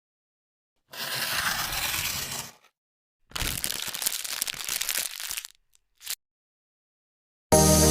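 Laptop box packaging being torn open and crinkled in two long stretches and one short burst. Electronic music starts loud near the end.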